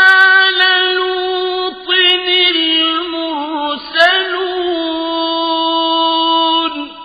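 Male Quran reciter chanting a verse in a long melodic line, holding a high note with ornamented turns about two and four seconds in. The voice stops near the end and leaves a reverberant tail.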